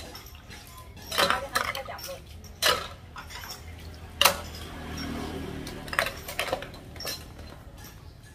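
Ceramic bowls and dishes clinking against each other and against stainless steel basins as they are hand-washed in water, with water splashing. Several sharp clinks come a second or so apart, the loudest about four seconds in.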